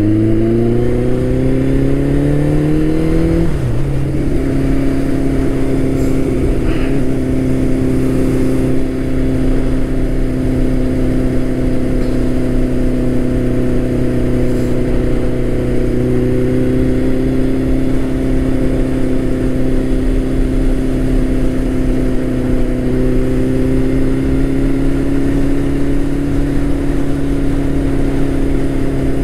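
Turbocharged Suzuki Hayabusa inline-four motorcycle engine rising in pitch under acceleration, dropping sharply about three and a half seconds in, then holding a steady freeway cruise. Constant wind noise over the helmet-mounted microphone runs under it.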